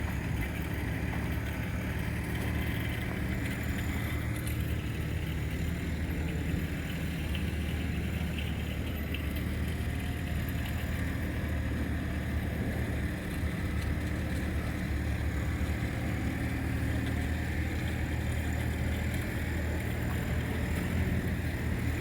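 Steady traffic rumble from vehicles passing on a city street, a continuous low drone with no distinct events.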